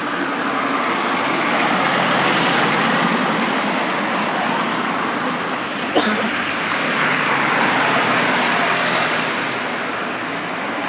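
Road traffic passing close by: the hiss of tyres and engines swells and fades twice as vehicles go past, with a short sharp click about six seconds in.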